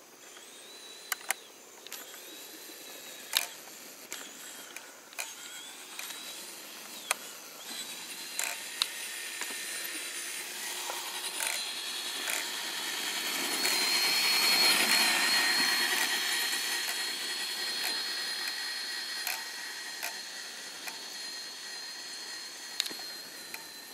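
Radio-controlled monster truck's electric motor and drivetrain whining as it drives about. The whine grows louder as the truck comes close, a little past the middle, then fades again. Scattered sharp clicks come mostly in the first several seconds.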